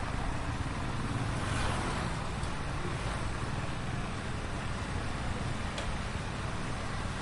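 Heavy street traffic heard while riding in a bicycle taxi: a steady rumble of engines and road noise, swelling briefly as a vehicle passes about a second and a half in.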